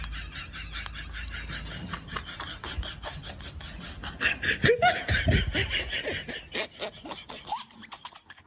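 Laughter, rapid and continuous, loudest a little past the middle.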